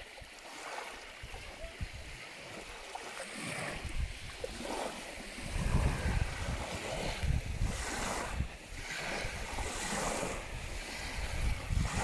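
Small waves lapping and washing over a shell-grit shore, the hiss swelling as each wave runs in. Wind rumbles on the microphone, stronger from about halfway.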